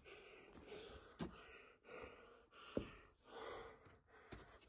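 A person breathing hard close to the microphone, with quick breaths in and out one after another, and three soft knocks along the way.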